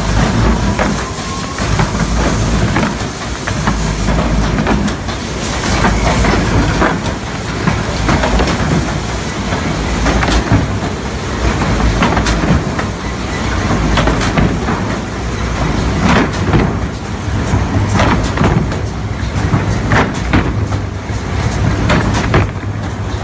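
Industrial plywood sanding machine running with a steady low rumble as meranti plywood sheets feed through it, with irregular knocks and clatter.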